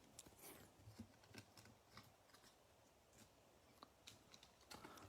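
Near silence with faint scattered clicks and light rustling of trading cards being handled.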